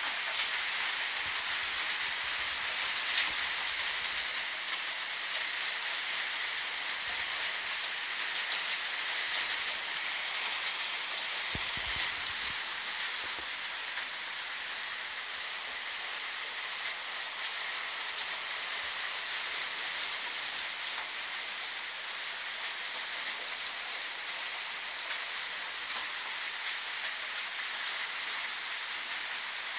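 Steady rain falling, an even hiss of drops with a few separate drip ticks standing out now and then.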